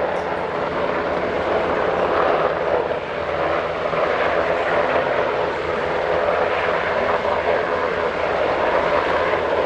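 US Coast Guard MH-60T Jayhawk helicopter hovering low over the water: a steady, loud din of main rotor and turbine engines that holds even throughout.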